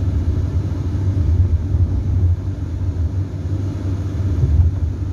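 Steady low rumble of road and engine noise inside a moving Chevrolet car's cabin at highway speed.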